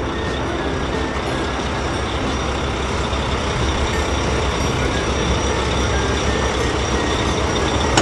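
Heavy truck engine running steadily, an unbroken low engine noise with no distinct knocks or beeps, as a cartoon sound effect.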